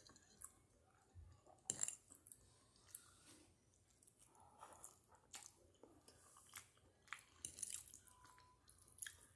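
Faint, wet chewing and lip smacks of a person eating spaghetti with meat sauce, broken by short clicks scattered through, the loudest about two seconds in.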